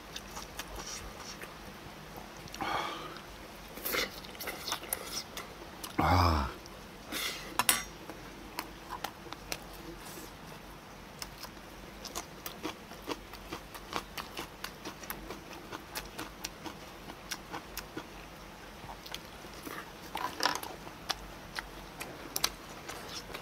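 Close-miked eating: a man chewing and smacking on a mouthful of pork bulgogi, with many quick wet mouth clicks and occasional chopstick taps on the dishes. A short low hum of the voice about six seconds in.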